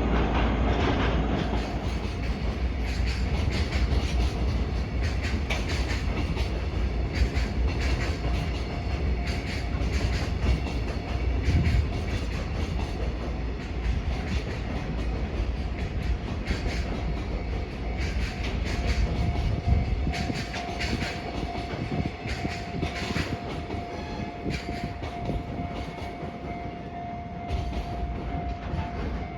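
A JR Freight container train hauled by an EF210 electric locomotive running past, its wagon wheels clattering rhythmically over the rail joints over a steady rumble. A faint steady tone joins about two-thirds of the way through.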